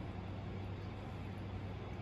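Steady low hum with an even hiss underneath: constant room background noise, with no distinct events.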